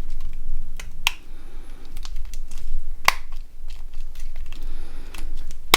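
Small plastic clicks and snaps from a Nokia 6680's plastic body shell being handled and fitted together, a few sharp ones standing out, the loudest about three seconds in, over a low steady hum.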